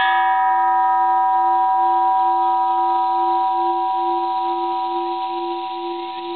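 Bronze Japanese Buddhist temple bell struck once at the very start and left ringing. A low hum that wavers slowly sits under several higher steady tones, all fading gradually.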